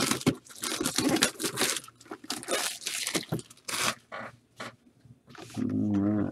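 Product packaging being torn open and crinkled by hand: a dense run of tearing and crackling for about four seconds, thinning to a few scattered rustles.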